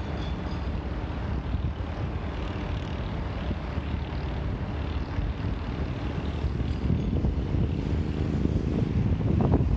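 Diesel-electric locomotive TR10, a TasRail TR class, running its engine under load as it pulls a cement train slowly away. The engine note gets louder and fuller over the last few seconds.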